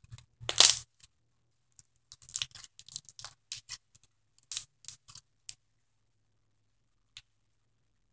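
Straw slime (slime mixed with cut plastic straw pieces) squeezed and stretched by hand, crunching and crackling. The loudest crackle comes about half a second in, then a run of smaller crackles over the next few seconds.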